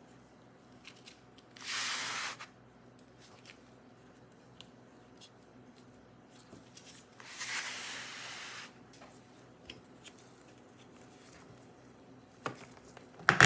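Laptop bottom cover scraping and rubbing against the chassis as it is pried and lifted off: two hissing scrapes, the second one longer, with small clicks between and two sharper clicks near the end.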